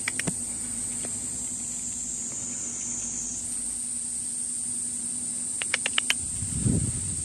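Steady high-pitched drone of cicadas singing. About six seconds in, a quick run of five or six short chirps or clicks sounds over it.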